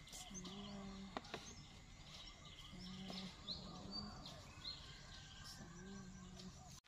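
Faint rural ambience: small birds chirping and twittering, with a low drawn-out note repeated three times, about every two and a half seconds.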